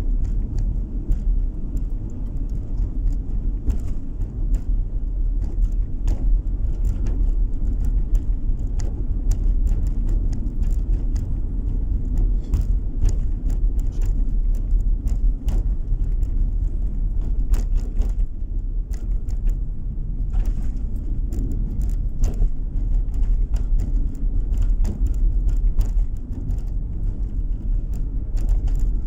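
Car cruising on a country road, heard from inside the cabin: a steady low rumble of tyres and engine, with frequent faint ticks throughout.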